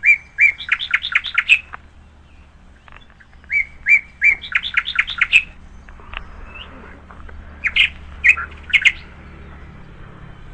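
A bird singing: two phrases of quick, rapidly repeated high notes, each about a second and a half long, then a few separate sharp calls about eight seconds in.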